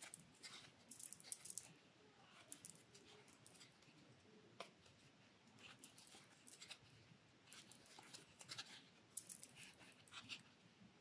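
Near silence with faint, scattered scratchy clicks of a crochet hook catching and pulling yarn through single crochet stitches.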